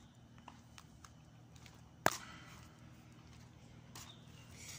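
One sharp click about two seconds in, with a few fainter ticks over a low steady hum.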